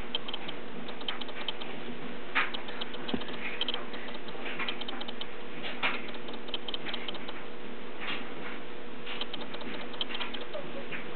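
A ferret and a hound dog scuffling: irregular light clicks and taps from their paws and claws, over a steady low hum.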